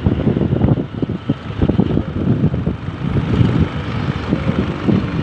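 Wind buffeting the microphone in rapid, irregular gusts over the rumble of road traffic, typical of filming from a moving vehicle.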